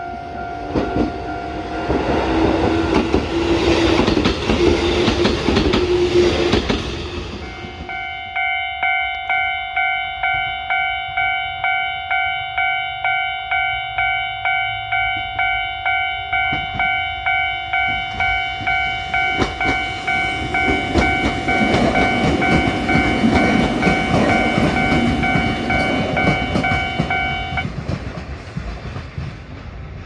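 A two-car Kotoden 1080-series electric train passes over a level crossing, its wheels clacking over the rail joints, while the crossing alarm sounds a steady tone. Then a Japanese level-crossing alarm rings in even strokes about twice a second for some twenty seconds. Another train rumbles past in the second half, and the alarm stops shortly before the end.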